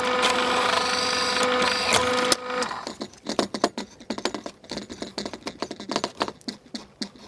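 Electric drill running steadily while drilling a hole in a small aluminium collar, then stopping about two and a half seconds in. Quick, irregular light metallic clicks and clinks follow.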